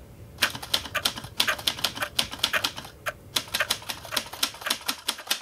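Old manual typewriter being typed on: quick, irregular runs of key strikes, with a short pause about three seconds in.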